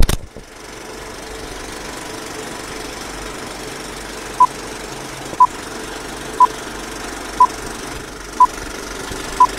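Old film-projector sound effect: a steady rattling whir with hiss, opening with a sharp click. From about four seconds in, a short beep comes once every second, six in all, as a film-leader countdown.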